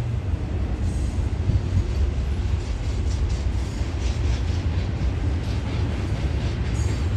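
Union Pacific double-stack intermodal freight train rolling past: the well cars' wheels and trucks give a steady low rumble, with faint repeated clicking of wheels over the rails.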